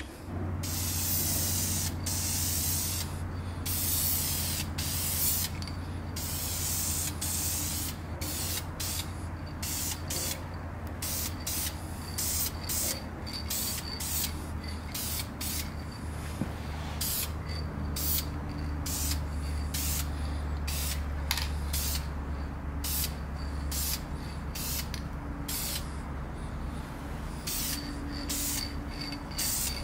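Aerosol spray can of Dupli-Color silver wheel paint hissing in a long string of bursts as a light first coat goes onto an alloy rim; the bursts are longer at the start and come shorter and quicker later on. A steady low hum runs underneath.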